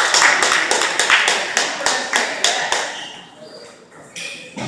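A quick run of light, sharp taps, about five a second, fading away over about three seconds, with a duller knock near the end.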